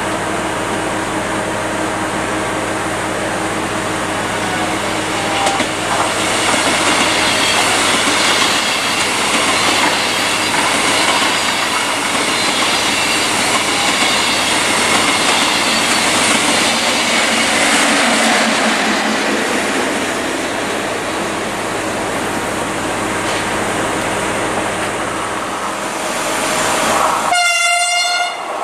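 A train running past, loudest in the middle, with a steady mix of rolling noise and motor tones. Near the end comes a brief horn blast about a second long.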